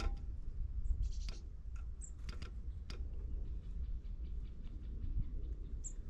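Great spotted woodpecker pecking at food at a bird feeder: irregular sharp taps and ticks, a few stronger blows in the first half, over a steady low rumble. A few very short high chirps sound about a second in, about two seconds in and near the end.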